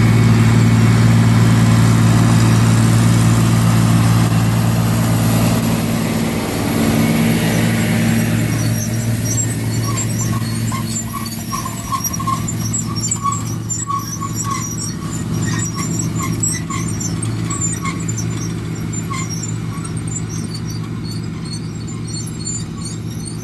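Large farm machine's engine running steadily and slowly fading, as if moving away. From about nine seconds in, many short, high squeaks repeat over the fading hum.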